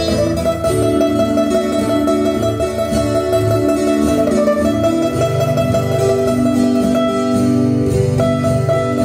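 Background guitar music: a plucked melody over bass notes.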